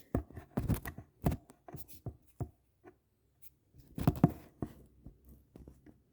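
Handling noise: a string of irregular clicks and knocks, as of something being moved and set in place by hand, with a short pause in the middle.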